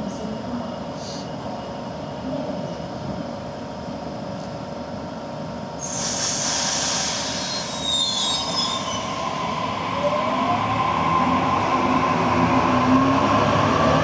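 Sydney Trains double-deck electric train standing with a steady hum. About six seconds in comes a sudden hiss of air with some squeaking, and from about ten seconds the traction motors whine, rising in pitch, and the wheels rumble louder as the train pulls away.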